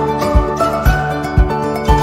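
Background music with a steady low beat about twice a second under a melody of held tones.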